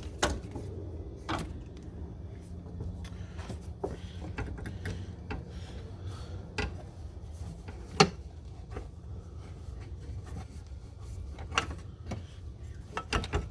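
Scattered clicks and knocks of hand tools and metal parts being handled during work on a truck's air-conditioning lines, with one sharper knock about eight seconds in, over a steady low rumble.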